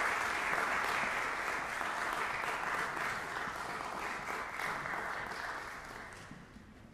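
Audience applauding, the clapping thinning out and dying away over the last couple of seconds.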